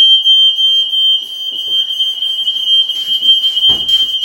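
Mains-wired household fire alarm sounding one loud, unbroken high-pitched tone. It is going off with nothing setting it off and won't stop: a faulty alarm. A brief thump comes near the end.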